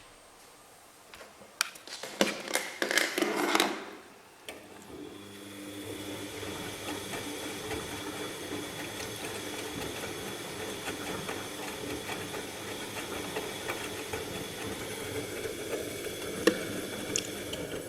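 Bosch MAXX 6 washing machine during a boil wash: a short clatter of knocks about two seconds in, then its motor starts and runs steadily with a hum and hiss.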